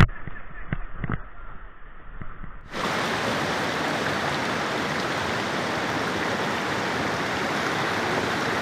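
River water rushing over rocks and small rapids, a steady rush that comes in suddenly about two and a half seconds in. Before it, a quieter stretch with a few faint clicks.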